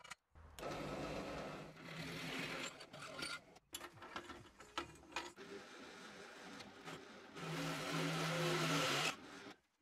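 Benchtop drill press running, its twist bit cutting through steel square tube, in a few short spells with brief breaks. The motor hum is strongest near the end.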